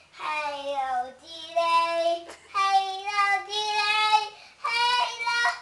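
A young boy singing in a high child's voice: four phrases of long held notes that slide a little in pitch, with short breaks between them.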